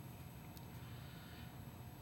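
Quiet room tone: a low steady hum under faint hiss, with one faint click about half a second in.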